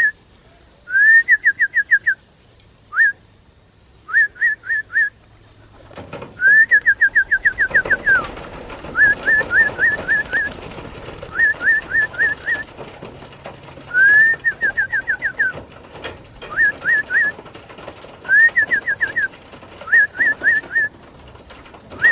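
Clear whistled notes in quick runs of three to ten, repeated every second or two, some runs opening with a long rising slur. A rushing noise sits underneath from about six seconds in.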